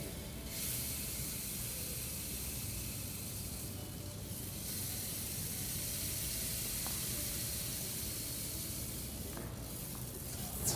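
Rain stick (clear sensory tube) held upright, filled beads trickling down in a steady hissing patter that breaks off briefly a few times as the tube is tipped.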